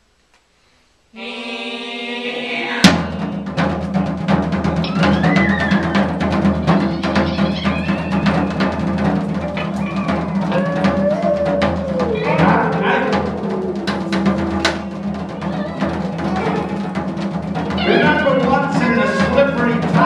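Live chamber ensemble of piano, hammered dulcimer, guitar, vibraphone and percussion. After about a second of silence a held chord enters, then a loud percussion strike about three seconds in opens a dense, loud passage over a steady low drone, thick with struck notes and percussion hits.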